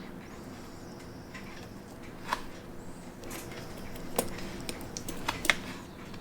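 A few small, sharp clicks of hand tools handling a wristwatch movement and dial, over a steady low hum. There are four clicks, two of them close together near the end.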